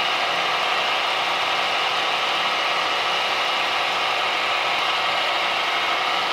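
Drill press running steadily, its bit drilling a pin hole through a steel knife tang into the wooden handle scale beneath it.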